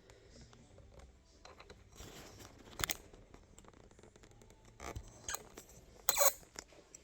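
Unboxing noises: cardboard and packing material being cut, pulled and scraped, with a few sharp clicks and a louder scrape about six seconds in.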